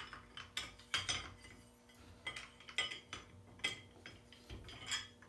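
Irregular light metal clicks and clinks, about a dozen short knocks, as the spring-loaded wheel guard is fitted and lined up on the gear head of a Milwaukee M18 Fuel 2880-20 angle grinder.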